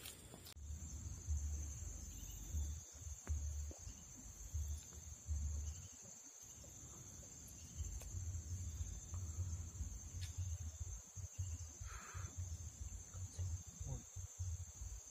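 Steady, faint, high-pitched chirring of insects, unbroken throughout, with an on-and-off low rumble on the microphone underneath.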